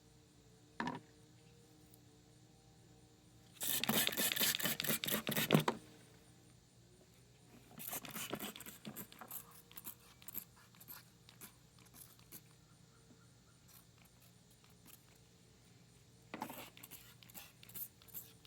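Lawn mower gas tank being handled and washed in hot soapy water: a crackly splashing stretch of about two seconds a few seconds in, with scattered small clicks and knocks of the tank and parts being moved.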